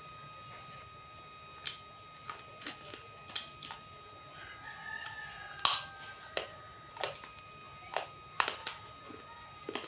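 Roasted multani mitti (fuller's earth clay) being bitten and chewed: a string of sharp, irregular crunches beginning a little under two seconds in. A rooster crows faintly about five seconds in.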